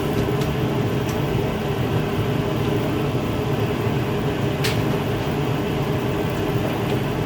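Engine idling with a steady hum, and one sharp click about two-thirds of the way through.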